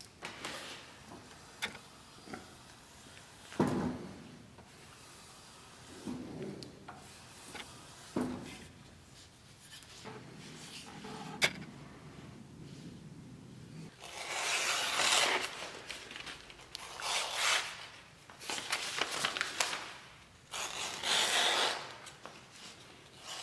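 A mortise axe blade being honed and handled, with quiet rubbing and a few knocks. From about halfway on come several loud rasping swishes as the sharpened edge slices through paper to test its sharpness.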